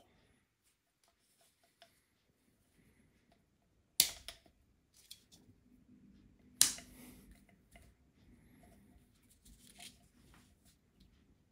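Two sharp clicks of small hard parts or tools being handled, about two and a half seconds apart, with a few lighter ticks and faint rustling around them.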